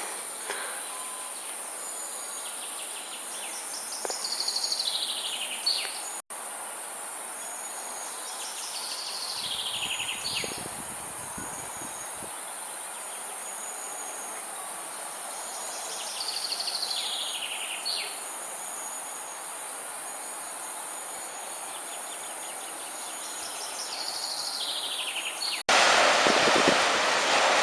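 A steady high-pitched insect chorus, with a songbird singing a short descending trill of notes four times, about every six to seven seconds. Near the end a louder, even rushing noise takes over.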